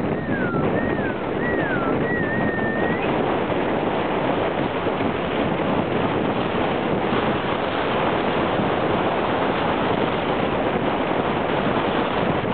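Steady rushing wind noise on the microphone of a camera carried on a moving bicycle. In the first three seconds a brief high whistling tone slides downward three times and then holds.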